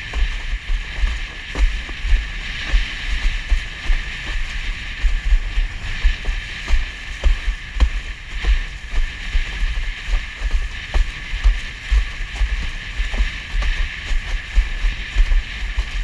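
Wind buffeting the action-camera microphone in an irregular low rumble over a steady rushing hiss of water under a windsurf board sailing through chop, with many light knocks as the board hits the waves.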